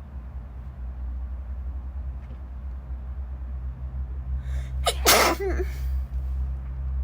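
A woman sneezes once, sharply, about five seconds in, over a steady low background hum.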